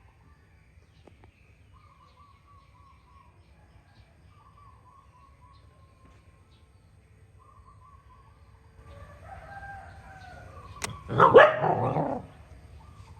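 Animal calls: faint, thin, high pitched notes, then a loud call lasting about a second just after eleven seconds in, right after a sharp click.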